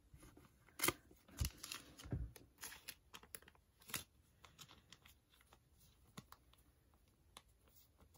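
A trading card is handled and slid into a thin plastic penny sleeve: faint plastic rustling and a few soft clicks and taps, the loudest about a second in, thinning out to scattered light ticks after about four seconds.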